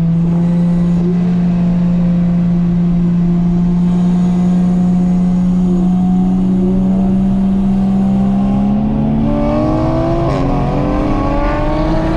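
Toyota Chaser's engine heard from inside the cabin under hard acceleration: a steady note that climbs slowly in pitch, then changes about nine seconds in and rises more steeply as the revs build again.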